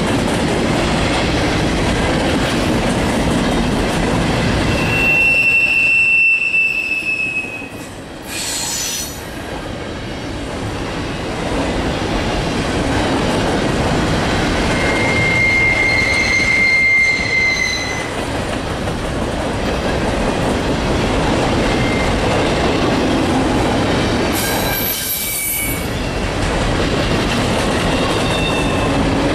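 Cars of a double-stack container train rolling past: a steady rumble and clatter of steel wheels on the rails. Two high wheel squeals stand out, one about five seconds in and a slightly lower one about fifteen seconds in.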